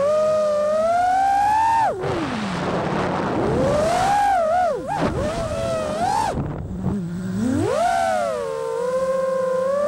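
Brushless motors and props of a 5-inch FPV freestyle quadcopter (XING2 2306 1755KV motors, Gemfan props) whining, the pitch sweeping up and down with the throttle. It drops sharply about two seconds in, dips and climbs several times in the middle, then settles into a steadier whine near the end.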